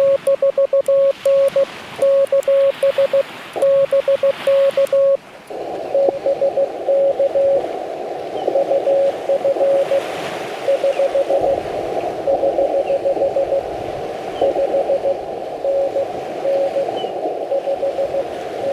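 Yaesu FT-891 on CW: for about five seconds a loud, clean Morse code tone is keyed out as the transmitter's sidetone. Then the receiver comes back, with band hiss through the narrow CW filter and another station's weaker Morse code answering in it.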